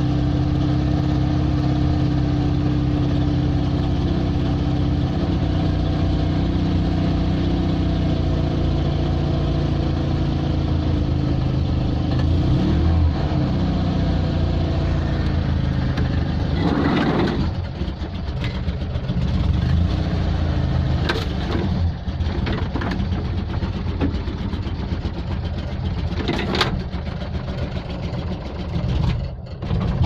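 Steyr-Puch air-cooled flat-twin engine of an Invacar Model 70 running steadily, heard from inside the cab, freshly started in sub-freezing cold on thick oil. In the second half a few sharp knocks and rattles come through over the engine.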